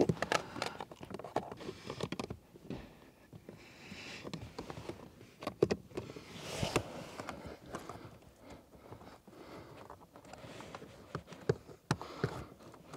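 Plastic cover of a Volvo S80's cabin-air-filter housing being worked and pressed into place by hand: scattered plastic clicks, knocks and scraping as it is fitted back on.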